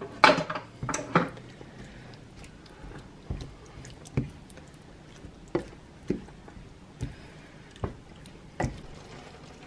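A utensil stirring a thick ground beef and tomato sauce in a skillet: wet squishing with short knocks and scrapes against the pan, spaced about a second apart, the strongest in the first second or so.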